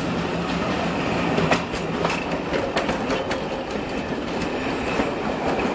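Railway passenger coaches rolling past close by: a steady rumble with irregular clicks as the wheels cross rail joints, and a couple of faint, brief wheel squeals.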